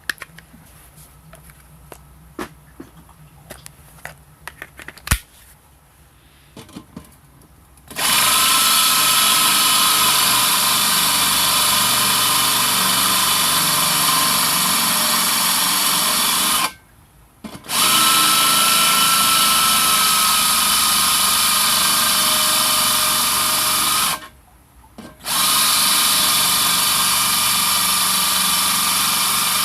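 A handheld power tool runs at a steady speed in three long stretches, stopping briefly twice. Before it starts, there are a few light clicks and knocks of handling.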